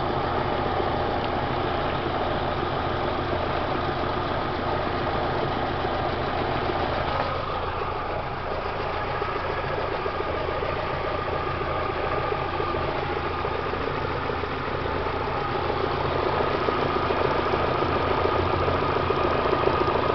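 Daewoo Lanos engine running at a steady idle, recorded to show an extraneous noise the owner hears from the car. It gets a little louder over the last few seconds.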